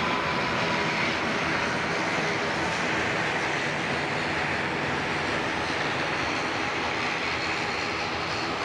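Swiftair ATR 72-500 turboprop airliner on short final, its twin turboprop engines and propellers running steadily as it passes low overhead toward touchdown, with a faint whine sliding slowly down in pitch in the first second.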